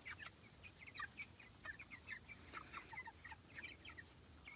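A flock of young broiler chicks peeping faintly: a steady chatter of short high chirps, several a second, overlapping one another.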